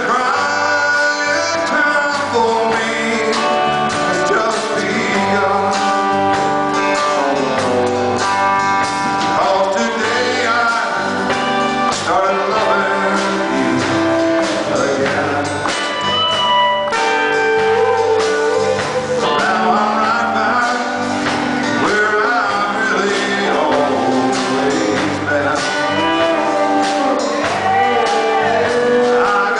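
Live rock band playing: a man singing over electric guitars and drums with cymbals.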